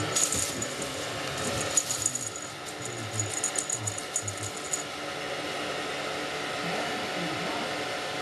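Cat wand toy with shiny streamers rattling and tinkling in quick clusters as a kitten bats at it, with a few soft thumps. The tinkling stops about five seconds in, leaving a steady background hiss.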